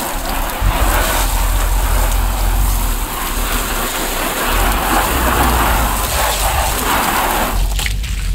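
Garden hose spraying water into a large tilted water tub to rinse it out, a steady rush of water against the tub that stops shortly before the end.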